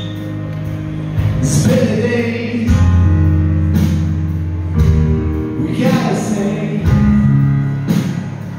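Live band music: strummed acoustic guitar and held keyboard chords over a bass line, with the chords changing every second or two.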